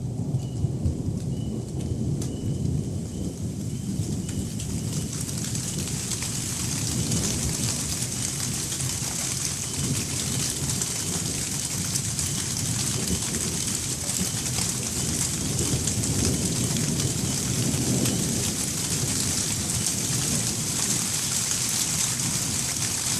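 Rain falling steadily, its hiss growing heavier about five seconds in, over low rolling thunder from a distant storm. Crickets chirp faintly in a quick regular pulse during the first few seconds.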